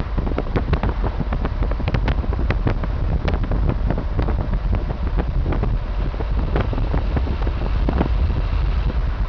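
Wind buffeting the microphone of a camera held in a moving car, over a steady low rumble of the car on the road, with frequent short crackles.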